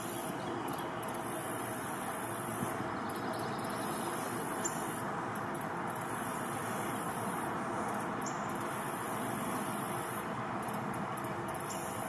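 Steady outdoor nature ambience: an even rushing noise with a high hiss above it that breaks off briefly a few times, and a few faint, short bird chirps.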